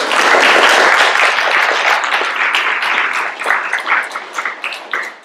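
Audience applauding. The clapping is dense at first, then thins out into scattered single claps and fades near the end.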